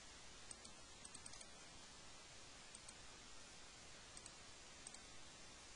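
A few faint computer mouse-button clicks, several in quick pairs like double-clicks, over a steady low hiss.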